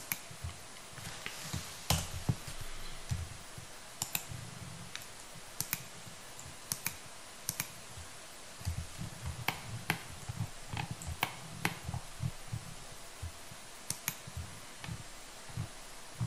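Computer mouse and keyboard clicking irregularly: a scatter of sharp single clicks, with soft low thuds among them.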